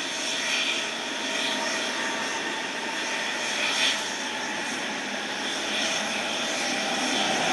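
Jet engines of a taxiing Boeing 777 airliner at low thrust: a steady rushing hum with faint whining tones, varying little in level.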